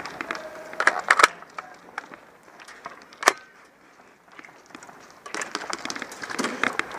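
A quick cluster of sharp cracks about a second in and a single loud crack a little after three seconds, then a run of crunching, scuffing footsteps near the end.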